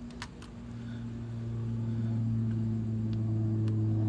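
Another vehicle's engine running nearby, a steady low hum that swells louder over the first two seconds and then holds, with a few light clicks from gaskets being handled at the transmission opening.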